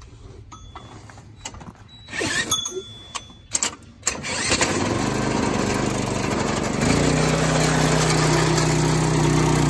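A Predator small gas engine, with its recoil starter removed, is spun with a cordless drill and catches about four seconds in, then runs steadily. A little under seven seconds in it steps up to a louder, heavier running note as it takes up the new belt driving the Cummins V8 diesel.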